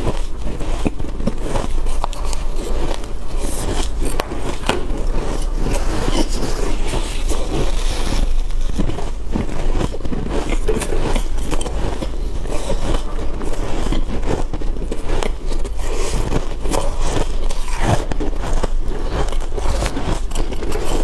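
Close-up crunching of freezer frost being bitten and chewed, a continuous run of dense, irregular crackles and crunches.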